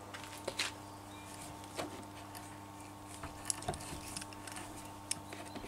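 Hand die in a die stock cutting a thread on a tough EN16T steel stud held in a bench vise: faint, irregular clicks and creaks as the stock is turned, over a low steady hum.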